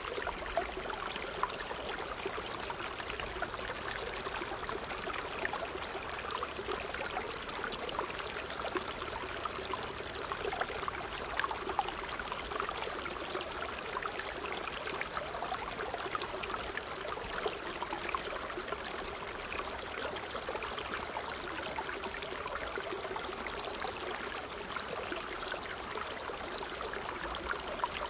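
Creek water running and splashing over rocks in a small cascade: a steady, unbroken rush with fine bubbling.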